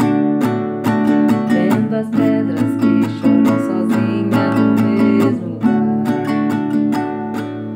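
Acoustic guitar strummed in a steady rhythm by a beginner, the chord changing twice.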